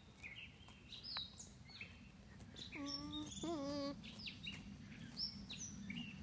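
Alpaca humming: two short, steady hums close together about three seconds in, with birds chirping throughout.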